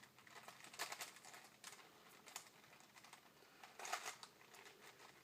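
Faint, irregular plastic clicking and clacking of a 4x4 Rubik's Cube as its layers are turned during a solve, with a few quick clusters of turns.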